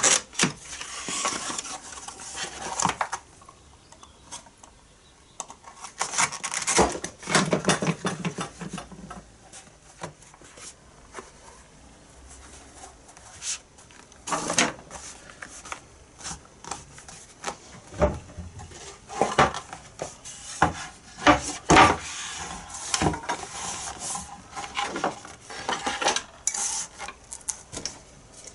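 Metal hand tools and small workpieces clinking, knocking and being set down on a workbench, in scattered sharp knocks, with quieter scraping and rubbing between them.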